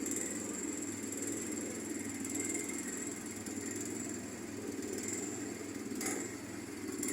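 Steady vehicle noise, a low rumble of engine and road, with a faint high-pitched whine held steady throughout.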